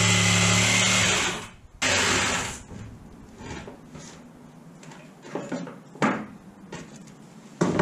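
Electric sabre saw (jigsaw) cutting plywood. The motor runs loud and steady for about the first second, then stops. It starts briefly again around two seconds in, after which only quieter knocks and scrapes are heard until a louder burst near the end.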